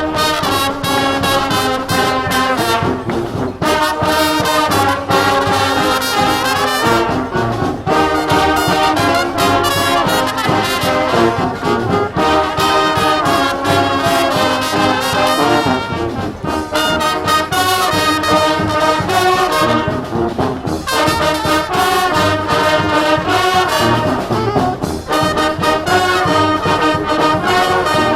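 Live street marching band playing loud brass, trombones and trumpets carrying the tune over a steady percussive beat, with no singing or chanting.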